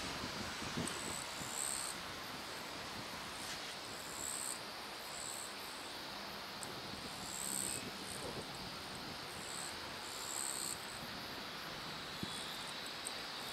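Insects chirping in short, high-pitched bursts, about one every second, over a steady background hiss.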